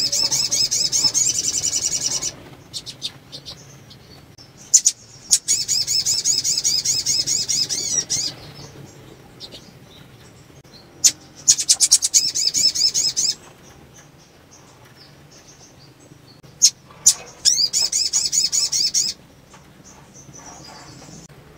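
Female sunbird (sogon) calling in breeding condition: four bursts of fast, high-pitched trilling twitter of a few seconds each, with a few sharp clicks between them.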